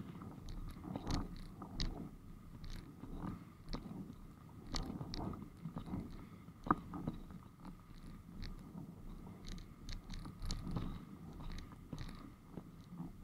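Windsurf board's hull knocking and slapping on light chop while under sail: irregular knocks and splashy ticks over a low rumble, with a faint steady high tone beneath.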